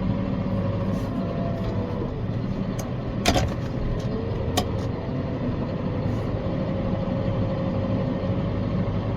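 Tractor engine running steadily, with a steady whine above the drone. Two sharp knocks, the louder about three seconds in and a lighter one just over a second later.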